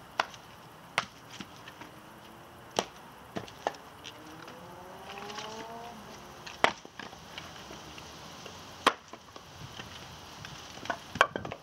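Split firewood logs tossed one at a time onto a pile beside a stone fire ring, each landing with a sharp wooden clunk. There are about nine clunks in all, unevenly spaced, two of them close together near the end.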